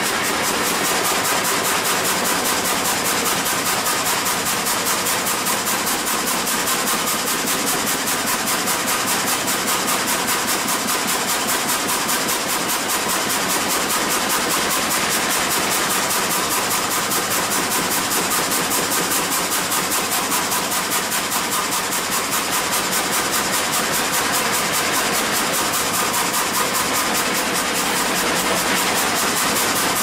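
Vertical log frame saw with several reciprocating blades cutting a log. It makes a loud, steady mechanical noise with a fast, even pulse.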